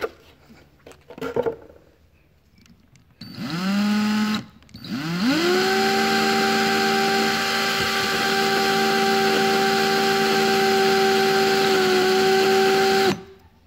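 Handheld drill motor spinning a bolt in its chuck to wind fishing line off a reel onto the bolt. After a couple of light knocks, a short run rises in pitch about three seconds in and stops. A second run then spins up and holds a steady pitch for about eight seconds before cutting off.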